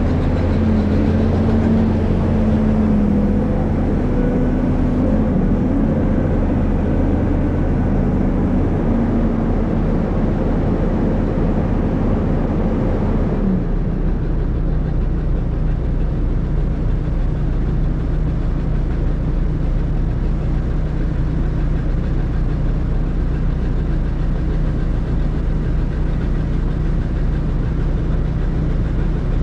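Hydraulic excavator's diesel engine running continuously with a pitched whine over it. About halfway through, the whine cuts off and the engine settles into a lower, steadier drone.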